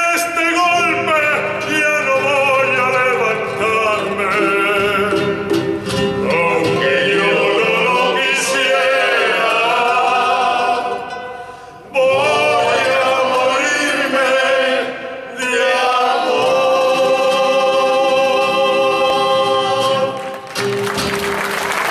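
Male vocal group singing in harmony, ending on long held notes; applause breaks out near the end.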